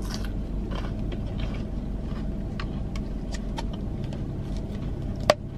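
Steady low hum of a parked car running, heard from inside the cabin. A small plastic sauce cup is handled with faint light ticks, and there is one sharp plastic click near the end as its lid is pressed on.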